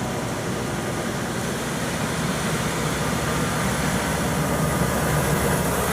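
Water running steadily over a muddy plastic toy as it is rinsed clean, a rushing hiss that grows slightly louder.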